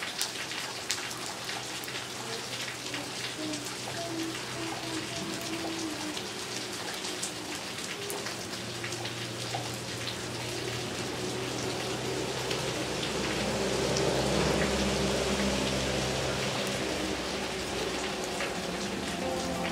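Steady rain falling on pavement, with many small raindrop ticks. Soft background music with held notes plays underneath and grows a little louder in the second half.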